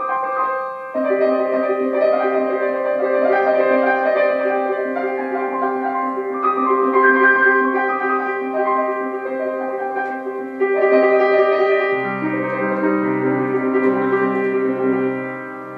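Grand piano played with both hands: held chords that change every few seconds, joined by repeated low bass notes about twelve seconds in.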